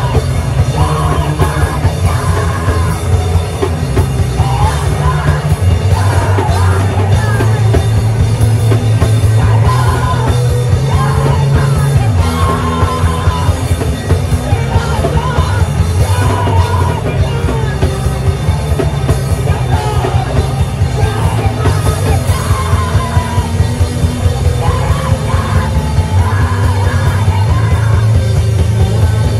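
A live punk rock band playing loud and dense: pounding drums and bass notes that change every few seconds under guitar, with a yelled lead vocal.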